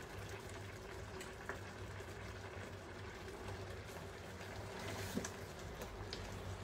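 Meat broth simmering around spaghetti in a stainless steel pan: a steady, faint bubbling over a low hum. A few light clicks near the end come from a utensil stirring in the pan.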